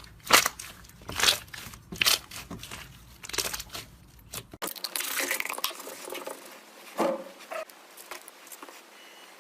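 Slime being squeezed and pressed by hand: a run of sharp, crackling squishes, then after about four and a half seconds a softer, continuous crackle with one louder squish near seven seconds.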